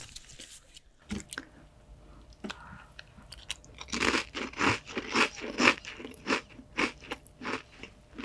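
Close-miked chewing of crunchy food: a few scattered crunches, then from about four seconds in a steady run of crunching bites, roughly one and a half a second.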